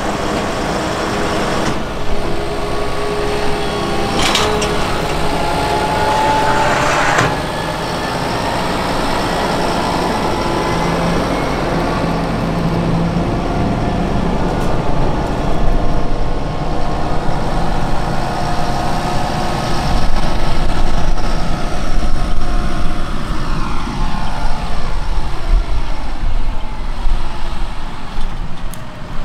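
Fendt 724 Vario tractor's six-cylinder diesel running steadily while it pulls a working Grimme SE 150-60 potato harvester. It grows louder and rougher past halfway, and the pitch slides down near the end.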